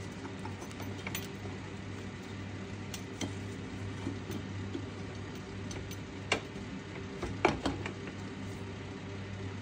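Small metal clicks and clinks of hand work on a motorcycle's rear brake caliper, spacer and axle being fitted, with two sharper metallic knocks about six and seven and a half seconds in. A steady low hum runs underneath.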